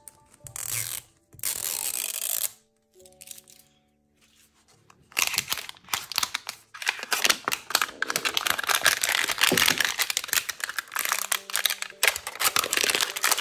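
Toy packaging being torn open and crinkled by hand: two short rips in the first couple of seconds, then several seconds of dense crackling and rustling from about five seconds in. Soft background music with held notes plays underneath.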